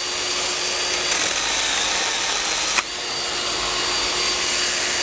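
Milwaukee M12 FUEL Hatchet 12-volt pruning chainsaw running and cutting through a branch, its motor and chain giving a steady whine, with one sharp click about three seconds in.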